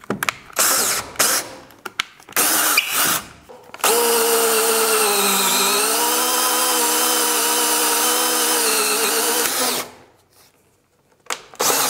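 DeWalt right-angle drill driving a 3/4-inch auger bit through a wooden wall stud. A few short trigger bursts come first, then a steady run of about six seconds whose motor pitch sags briefly as the bit bites, before it stops. One more short burst comes near the end.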